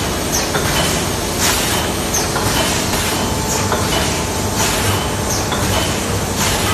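Vertical sachet packing machine running, its pneumatic sealing jaws cycling with a short hiss of air about once a second over a steady mechanical clatter and hum.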